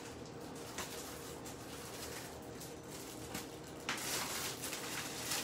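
Plastic bag and candy wrappers crinkling and rustling as hands rummage through them, soft at first and louder crackling from about four seconds in.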